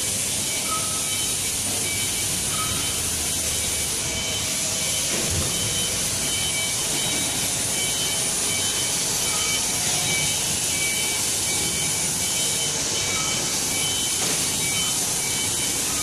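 Industrial tunnel-type microwave drying machine running: a steady, even high hiss over a low hum, with faint thin high tones coming and going.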